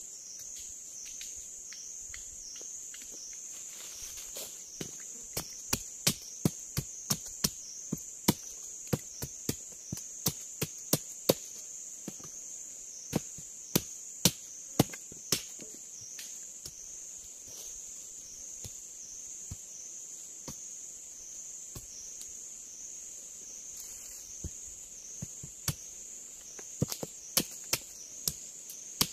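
Machete blade striking a wooden stick in a series of sharp knocks, several a second at times, starting about four seconds in, pausing through the middle and resuming near the end. Under it is a steady high-pitched insect chorus.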